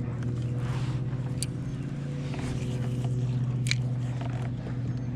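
Steady low mechanical hum from a running motor, its pitch dipping slightly at the start. Two short, sharp high chirps come over it, about a second and a half in and again near four seconds.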